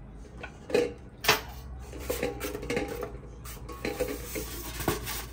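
Clinks and knocks of a stand mixer's metal beater and mixing bowl being handled, some knocks leaving a short ring.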